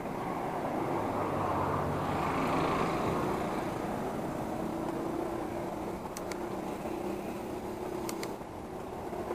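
Wind and road noise from a moving bicycle, with motor traffic on the road; the noise swells about two seconds in as a vehicle goes by, and a few sharp clicks come near the end.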